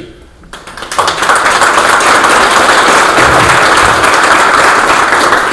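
Audience applauding: the clapping starts about half a second in, quickly reaches full level and holds steady, then eases off near the end.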